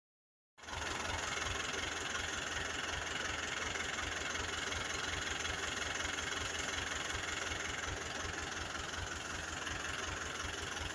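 Excavator's diesel engine running steadily at idle, a low even pulsing throughout once it comes in about half a second in.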